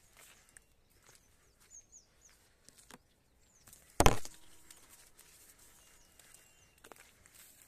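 Footsteps and rustling through dry coconut fronds and undergrowth, with one loud crackling snap of dry vegetation about four seconds in. Small birds chirp faintly throughout, short high notes that drop in pitch.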